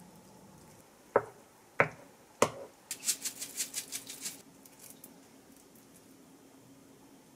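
Kitchen handling sounds while toppings go into a pot of rosé tteokbokki: three sharp clicks a little over half a second apart, then a quick run of light ticks for about a second and a half, like seeds shaken from a container.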